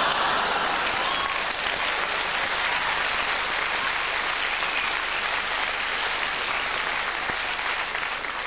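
Studio audience applauding steadily, mixed with laughter as it breaks out at the start.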